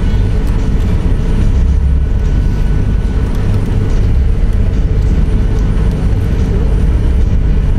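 Steady, loud rumble of a boat's engines under way, heard from inside the passenger cabin.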